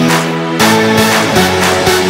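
Electronic intro music: held synth chords over a beat, the chord changing about half a second in.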